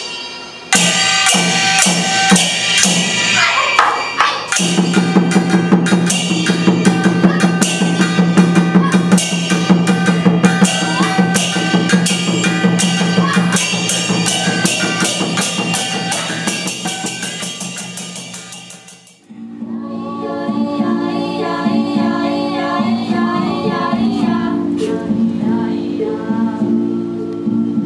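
Music: fast, dense drumming with many rapid strikes over a steady low held tone. About 19 seconds in it cuts off abruptly and a different passage begins, with held pitched notes and a wavering melody line over them.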